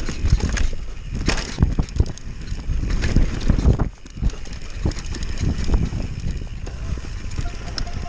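Downhill mountain bike clattering and rattling over a rough dirt track at speed, with many sharp knocks from the bike and a constant rumble of wind over the camera microphone. The noise drops briefly about four seconds in.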